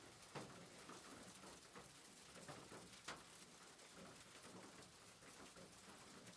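Faint rain pattering on a rooftop: a steady hiss of many small drops, with a few louder single drop ticks, the clearest about half a second in and about three seconds in.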